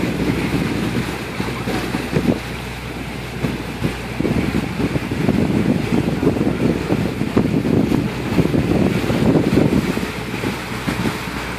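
Wind buffeting a phone microphone on an open boat, rising and falling in gusts and getting louder about halfway through, over a steady low hum.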